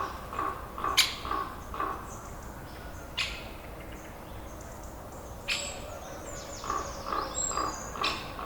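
Birds calling: a short call repeated about two to three times a second, quick falling high chirps, and a few sharp clicks.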